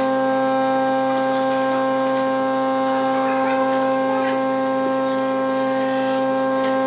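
Wood lathe running at a steady speed: a steady, even humming whine with several overtones, and faint scratching near the middle.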